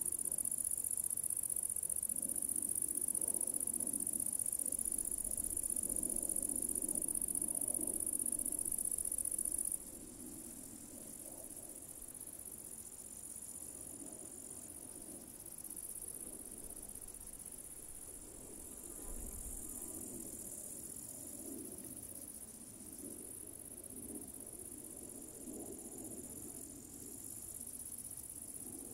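Crickets chirring steadily at a very high pitch. About ten seconds in the chirring suddenly drops in loudness and carries on fainter, with a faint low rumble underneath.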